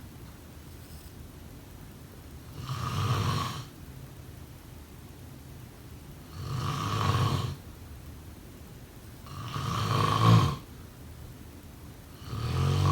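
A person snoring in an even rhythm: four snores about three seconds apart, each about a second long, a low rasping rumble with quieter gaps between.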